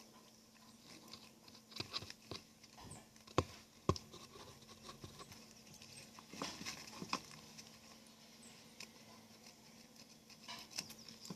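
Faint handling noises of a surf leash's velcro strap being worked by hand: scattered small clicks and scrapes, with a few sharper clicks around three to four seconds in.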